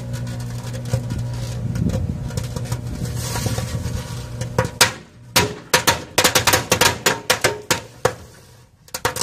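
A running microwave oven hums steadily. From about halfway, a rapid, irregular string of sharp firecracker bangs goes off inside it, thickest in the second half.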